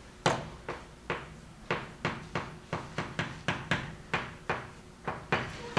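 Chalk writing on a blackboard: a quick, irregular run of sharp taps and short scrapes, about three to four a second, as each stroke of the characters is made.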